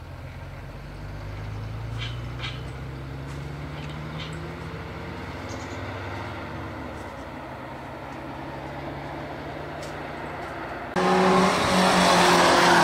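Low engine hum of a recovery truck moving off, its pitch rising a little in the first couple of seconds. About eleven seconds in it cuts suddenly to a much louder sport motorcycle engine running hard on the track.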